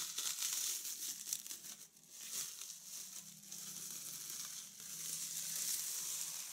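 Plastic cling film being peeled off a soft cake, crinkling and crackling, with a short lull about two seconds in. A faint steady low hum runs underneath.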